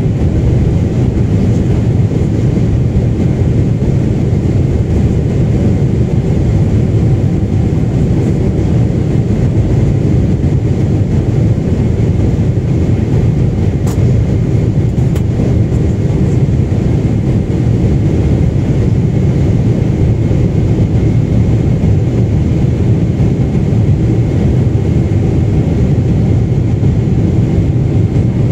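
Cabin noise inside a Boeing 747-8: a steady, unchanging low rumble of engines and airflow, with a couple of faint clicks about halfway through.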